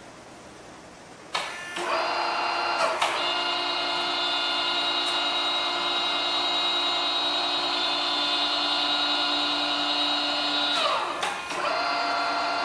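Radial drilling machine's spindle drive starting with a click and running with a steady whine. About ten seconds in it winds down with falling pitch, then starts up and runs again near the end.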